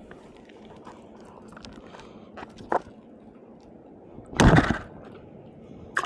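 Sea water lapping gently at an inflatable paddle board, with a few small handling knocks, then one short, loud splash about four and a half seconds in as a hand and fish go into the water.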